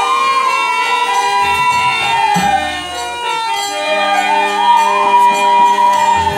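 Bamboo flute playing a wavering, ornamented melody over a harmonium's sustained chords, with a few khol drum strokes in a Bengali devotional kirtan.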